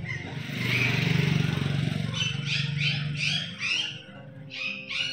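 A passing motor vehicle's engine hums for the first three seconds or so, then small birds chirp rapidly in two quick runs of high calls.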